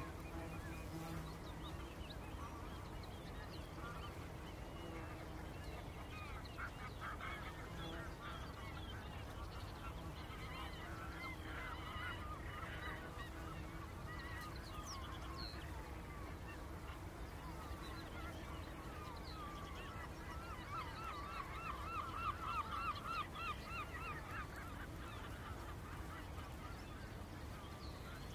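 Wadden Sea mudflat soundscape: geese honking and other birds calling over a low steady background. A quick run of repeated calls a little past two-thirds through is the loudest part.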